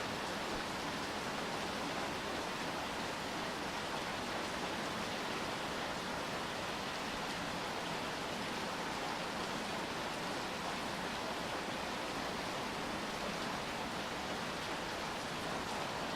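Steady rainfall, an even hiss with no distinct drops or other events.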